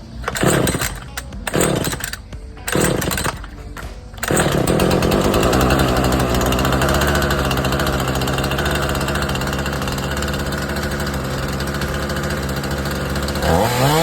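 Husqvarna 445 e-series X-Torq two-stroke chainsaw: four short bursts of throttle over the idle, then held at high revs for about nine seconds, the pitch climbing sharply just before the end.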